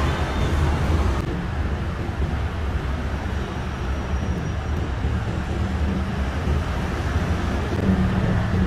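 Steady low drone of running machinery: an even, constant hum with no distinct knocks or clicks.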